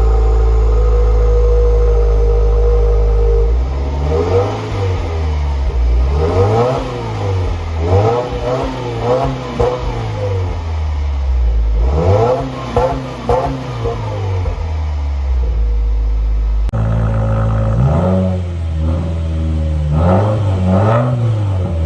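Subaru WRX's turbocharged flat-four engine idling steadily, then revved up and back down over and over in quick blips through its exhaust. It settles to idle after an abrupt break, then is blipped a few more times near the end.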